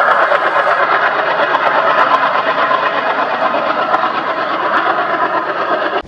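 Two WDM-3A ALCo diesel locomotives, double-headed, hauling a passenger train: their 16-cylinder ALCo 251 engines running hard together with the train's rolling noise, a steady, unbroken sound.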